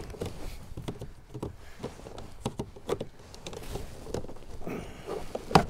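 Irregular plastic clicks, taps and scrapes as a flat-blade screwdriver pries up the plastic power window switch panel on a 1997 GMC Sierra's door trim, with one sharper click near the end.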